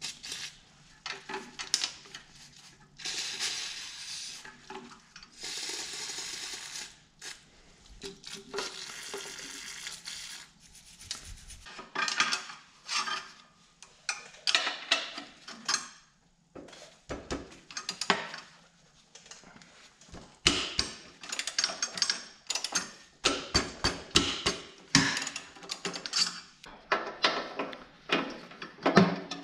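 An aerosol spray can hisses in three bursts of a second or two each, spraying the carriage bolts of a garden tractor's front support. After that comes a long run of irregular metallic clicking and clinking from a ratchet wrench working those bolts loose.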